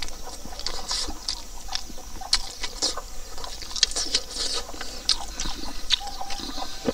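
A person chewing a mouthful of pork ribs and rice with wet lip-smacking, a run of quick irregular clicks.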